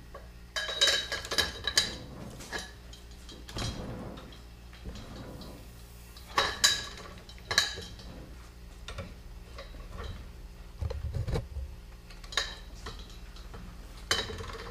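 Metal-on-metal clinks and clicks from a socket and breaker bar working the bolts on a Nissan 350Z rear brake caliper clamped in a steel bench vise, loosening them. The clinks come in short bursts with quieter gaps between.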